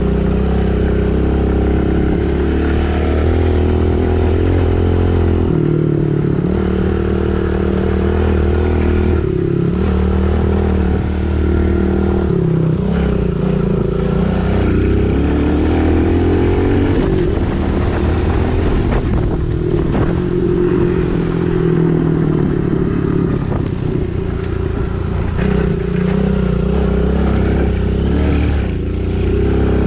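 Pit bike engine under way, its pitch rising as the throttle opens and dropping off again, over and over as the rider accelerates and backs off around the track.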